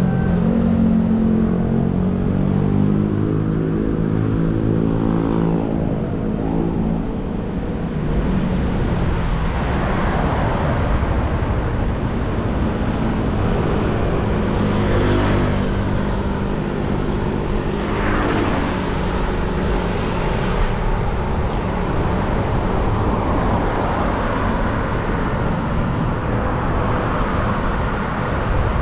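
City street traffic: a motor vehicle's engine hums close by for the first several seconds, then passing vehicles swell and fade a few times over a steady road noise.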